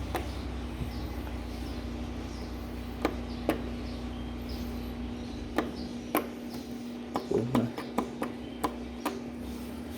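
Scattered sharp clicks and light knocks of plastic washing-machine parts being handled and snapped into place during reassembly, more frequent in the second half, over a steady hum; a low rumble underneath stops about halfway.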